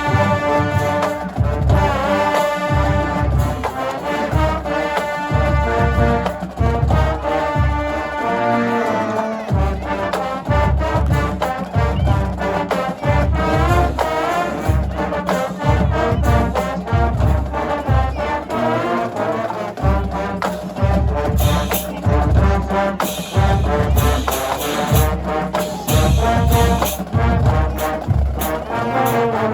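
A brass band playing a tune, with sustained brass horn lines over a steady low drum beat of about two beats a second.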